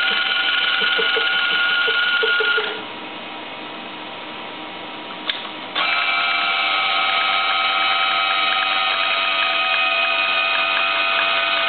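Abnormal noise from a Noran Voyager EDS detector: a steady whine made of several high tones. It drops away about three seconds in, there is a single click, and then it comes back suddenly and runs on steadily.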